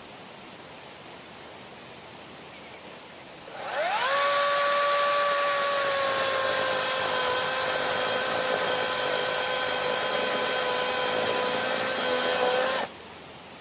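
Greenworks 20312 40-volt cordless electric chainsaw spinning up with a quick rising whine about three and a half seconds in, then running at a steady high whine for about nine seconds, sagging slightly in pitch, before cutting off suddenly when the trigger is released.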